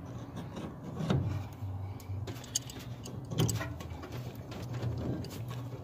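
Light clicks and knocks of hands handling the fuel hoses and fittings on top of a truck's fuel pump sending unit, over a low, pulsing background hum.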